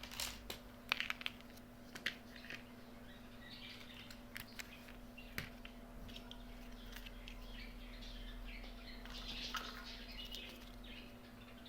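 Small plastic toy kitchen pieces being handled: scattered light clicks and taps, most of them in the first few seconds, then stretches of soft rustling, over a faint steady hum.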